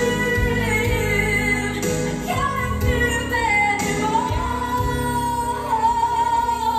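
A woman singing over backing music, holding a long note through the second half.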